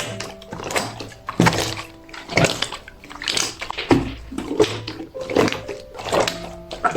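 Clear jelly "fake water" slime being pressed and squeezed by hand, giving wet squelching sounds about once a second.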